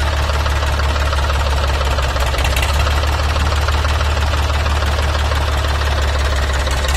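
Ford 3600 tractor engine idling steadily, with an even low running note.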